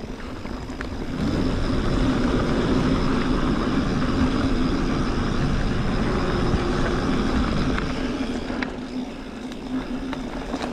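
Mountain bike riding down a dirt trail: rolling and rattling ride noise with a steady hum. It grows louder about a second in and eases off near the end.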